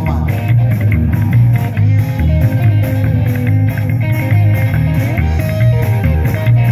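Live rockabilly band playing: upright double bass pulsing out the low line, electric guitar and a drum kit, loud and continuous.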